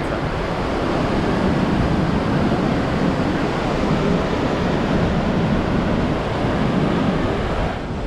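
Loud, steady rush of a large waterfall heard from close to its brink, where the water plunges over the edge.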